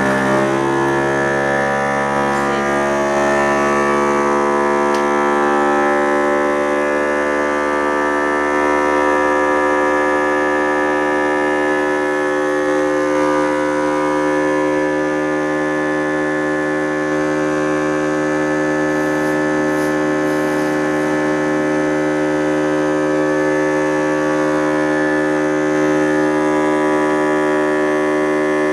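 A loud, steady hum with many overtones, starting abruptly and holding an even pitch without change.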